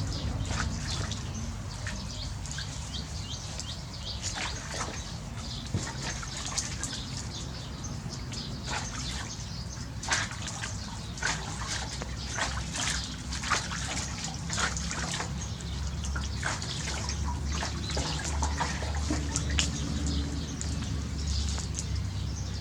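Water dripping and splashing in irregular small drops and ticks, over a steady low hum.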